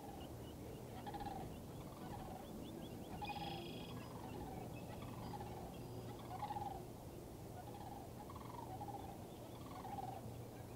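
Greater prairie chickens calling on a lek: short, falling cackling calls repeated about once a second.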